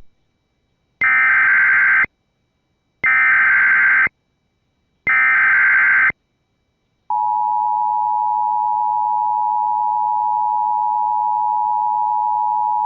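Emergency Alert System SAME header: three one-second data bursts about a second apart, then, about seven seconds in, the steady two-tone EAS attention signal (853 and 960 Hz) that announces a tornado warning.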